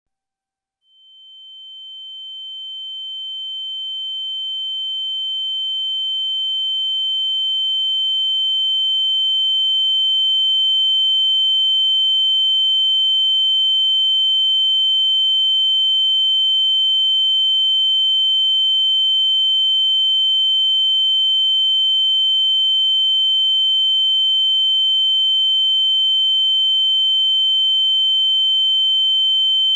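Synthetic ear-ringing tone, the tinnitus whine heard after a flash bang: a steady high-pitched pure tone with a fainter lower tone beneath. It fades in about a second in, swells over the first ten seconds or so, then holds steady.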